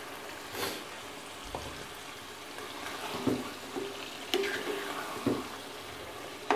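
Boiled beef pieces sliding into a nonstick karahi of fried masala and being stirred in with a spatula: a low sizzle with several spatula scrapes and knocks against the pan.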